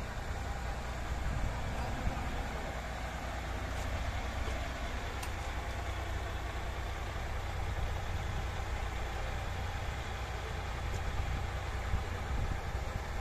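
Heavy truck diesel engine running steadily, mostly low-pitched.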